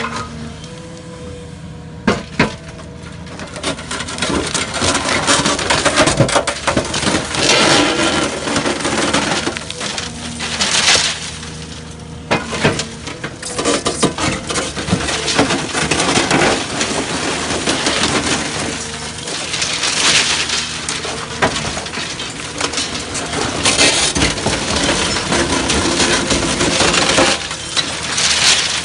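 Hydraulic concrete crusher jaws on an excavator crushing reinforced concrete: repeated spells of loud crunching and cracking as the concrete breaks, with short lulls between bites, over the steady running of the excavator's engine.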